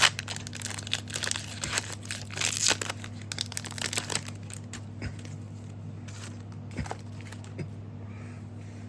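Trading-card booster pack wrapper being torn open and crinkled, with dense crackling and clicks in the first half and sparser rustles and clicks after, over a steady low hum.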